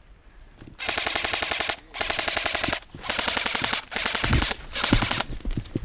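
Airsoft gun firing on full auto in five quick bursts, a rapid even rattle of shots, starting about a second in.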